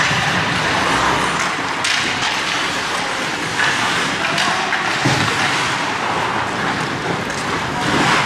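Ice hockey play: a steady scraping hiss of skates on the ice, with a few sharp knocks of sticks and puck.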